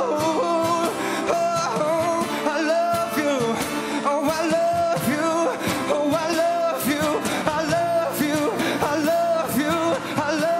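Male solo singer singing live into a microphone with a wavering, sustained melody, accompanied by strummed acoustic guitar.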